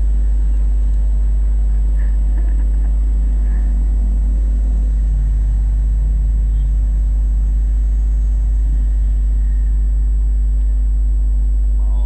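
Steady low rumble of city street ambience with traffic, plus a thin steady high whine.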